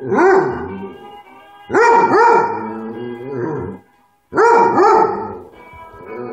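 Basset hound howling along to music: three rounds of drawn-out howls, each with several notes that rise and fall in pitch, the loudest in the middle and near the end.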